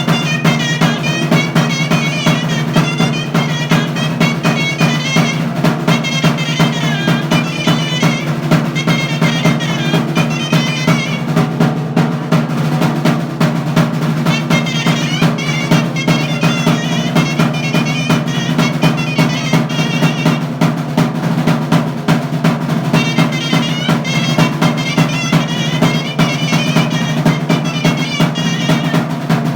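Chirimía, a double-reed shawm, playing an ornamented melody in phrases over a continuous rolling drum accompaniment. The melody pauses twice while the drumming carries on.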